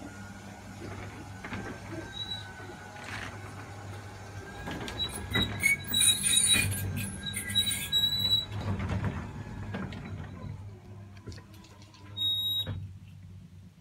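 New Hörmann sectional garage door opening, its panels rolling up the curved steel tracks with rattling, clicking and a steady low hum underneath. High-pitched squeals come loudest midway and once more briefly near the end, a noise that sounds like a railway shunting yard.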